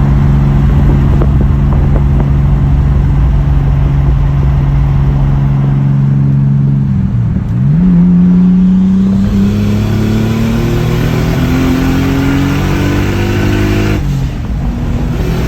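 Nissan Skyline R34's engine running under way. The engine note holds steady, dips about seven seconds in, then climbs steadily as the car accelerates, with a brief drop in pitch near the end before it climbs again.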